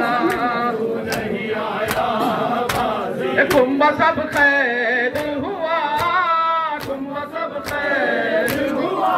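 Mourners chanting a nauha (Muharram lament) together, with rhythmic chest-beating (matam) as sharp slaps about twice a second.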